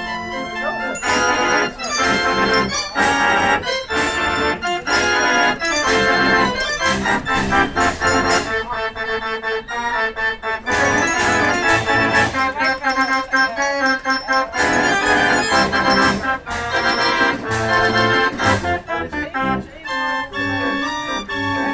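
A c. 1900 A. Ruth & Sohn 37-key fairground concert organ playing a tune: pipes sounding in full chords, with percussion strokes marking the beat about twice a second.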